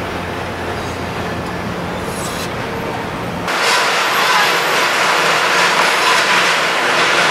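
Car assembly plant floor noise: a steady mix of machinery drone, air hiss and faint clatter. About three and a half seconds in it turns brighter and louder, with the low rumble dropping away.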